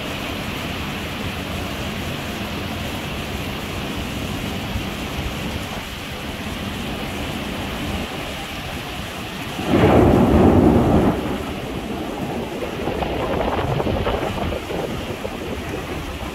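Heavy rain falling steadily as a dense hiss. About ten seconds in, a sudden loud burst lasts about a second and a half, with a smaller swell a few seconds later.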